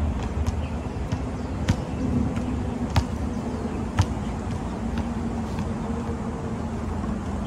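A basketball bouncing on a hard court, a few sharp single thuds spaced about a second apart in the first half, over a steady rumble of road traffic with a low hum.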